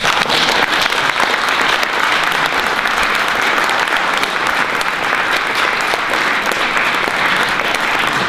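Audience applauding: many people clapping together, starting suddenly and keeping up an even, dense clatter of claps.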